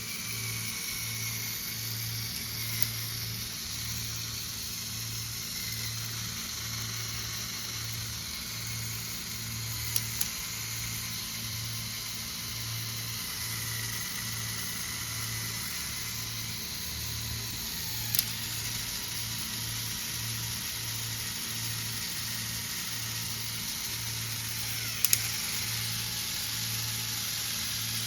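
Small electric motor running a LEGO Technic gearbox: a steady whine with a pulsing low hum, broken by a few sharp clicks, after which the pitch shifts slightly.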